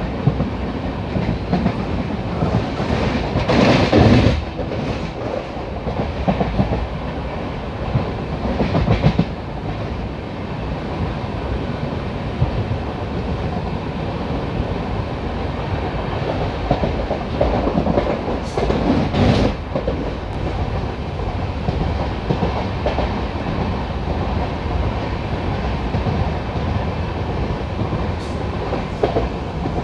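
Passenger train coaches running at speed, heard from an open doorway: a steady rumble and clatter of wheels on rail. A few louder clattering surges stand out, the strongest about four seconds in and again just under twenty seconds in.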